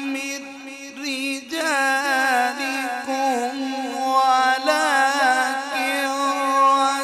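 A man reciting the Quran in the melodic tilawat style, drawing out long, ornamented phrases whose pitch wavers and bends. A short dip comes near the start, then one long, sustained phrase.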